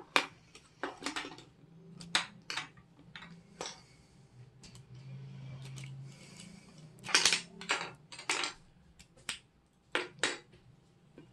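Plastic Lego bricks clicking and snapping against each other as they are pulled apart and handled, in irregular sharp clicks, with louder clusters about seven seconds in and again near ten seconds.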